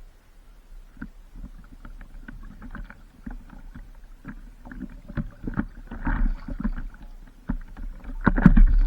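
Water sloshing and splashing around a paddleboard, with irregular knocks and a steady low rumble; it grows busier and louder about a second before the end.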